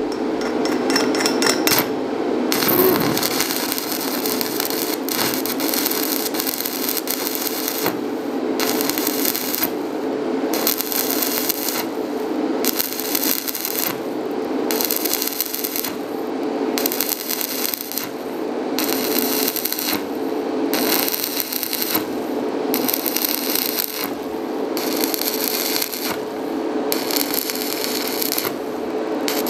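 Stick (manual arc) welding with a 3 mm rutile electrode at 90 amps on a vertical pipe joint: the arc crackles and sizzles steadily, with short breaks in the hiss every second or two.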